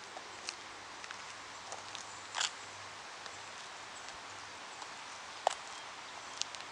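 Faint outdoor background hiss with a few soft, scattered clicks and ticks.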